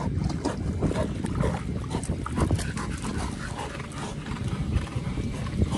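Retriever dogs making short sounds over a steady low rumble.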